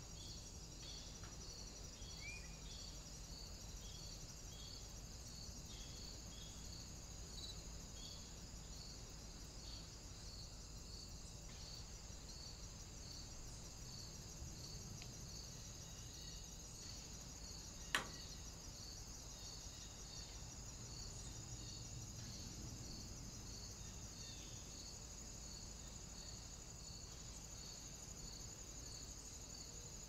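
Insects chirping steadily: a regular chirp about twice a second over a continuous high buzz, with a single sharp click about eighteen seconds in.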